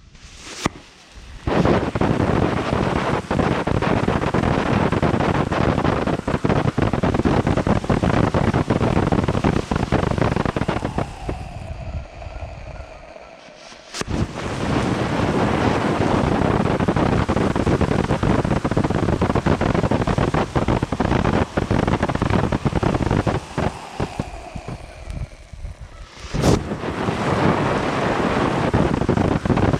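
Multi-tube firework fountain burning with a loud, steady hissing spray. Twice the spray fades out and a sharp pop starts the next tube, which picks up the full hiss again.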